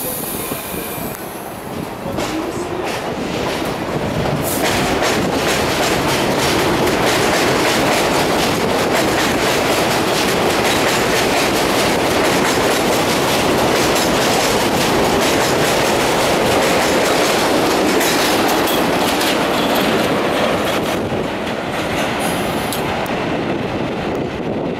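Vintage R33 subway cars pulling out along elevated track, steel wheels clattering over rail joints as the train picks up speed. The clatter builds over the first few seconds and eases about 21 seconds in.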